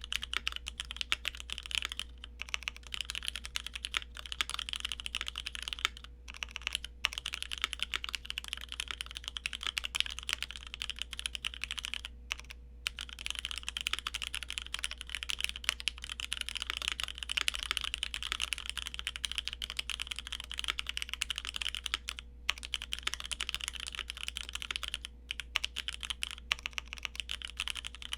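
Keychron Q1 aluminium mechanical keyboard with Cherry MX Black linear switches on its stock plate, fitted with an aftermarket tuning kit, being typed on quickly and steadily, with a few brief pauses between bursts of keystrokes.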